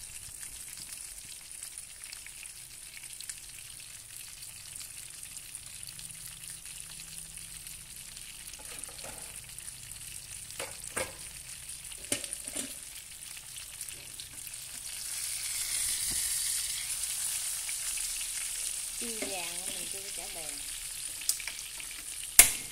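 Whole fish frying in hot oil in a nonstick pan, a steady sizzling hiss that grows louder for a few seconds past the middle. A few sharp clicks sound along the way, the loudest near the end.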